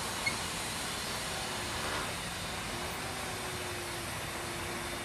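Steady running noise inside a container truck's cab at low speed: the diesel engine's low rumble under an even hiss, with one small click shortly after the start.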